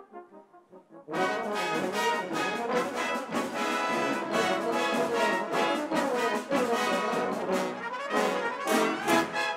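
Brass band with percussion playing: a soft held brass chord fades for about a second, then the full band comes in loudly together with drum and cymbal strikes and plays on at full volume.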